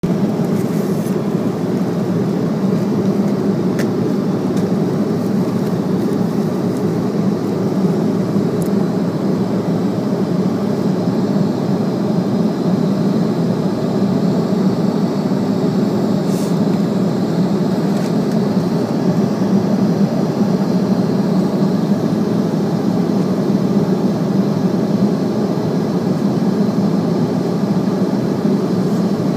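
Steady cabin noise of a jet airliner in flight: an even low rumble of engines and rushing air, with a few faint ticks.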